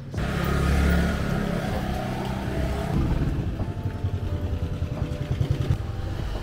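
Small motorcycle engines passing close by in a narrow street: a motorcycle-sidecar tricycle and a scooter. A fast, pulsing engine note is loudest in the second half, over a steady street hum.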